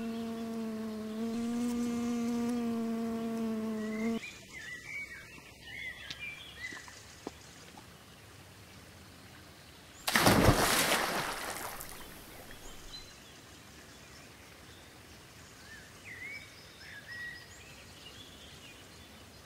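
An animated bee buzzing steadily at one pitch for about four seconds, then stopping abruptly. Scattered bird chirps follow, and about ten seconds in a loud splash fades away over about two seconds.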